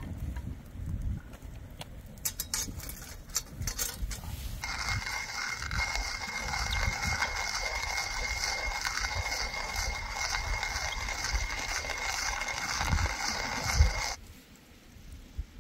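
A small mechanism whirring steadily for about ten seconds with a high steady tone, starting suddenly about four and a half seconds in and cutting off suddenly near the end. Scattered clicks come before it, and low knocks run underneath.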